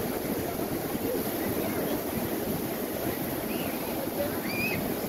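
Surf washing steadily onto the beach, a continuous rushing wash with faint voices in the background.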